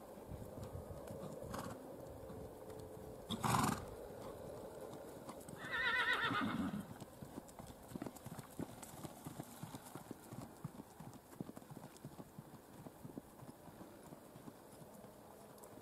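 Hoofbeats of a gaited mare moving at a smooth, even gait on a dirt arena, a quick run of soft knocks. About six seconds in, a horse whinnies once for about a second, and a short loud burst of noise comes just before it.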